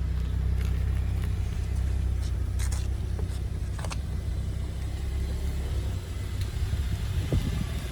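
The 2015 VW Golf R's 2.0-litre turbocharged four-cylinder engine idling with a steady low hum. The hum weakens and turns uneven about six seconds in.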